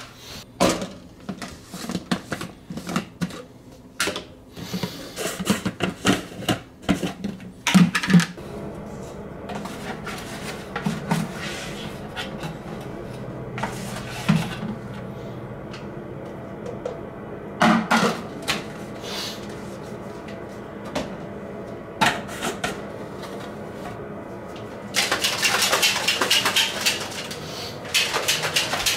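Scattered knocks, clinks and clatter of kitchen handling: dishes, containers and cupboard doors. About 25 seconds in there is a few seconds of steady rushing noise.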